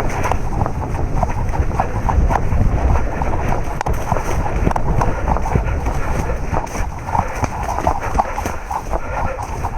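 Irregular clicks and knocks with rustling over a steady low rumble on the microphone, typical of a body-worn camera being carried around.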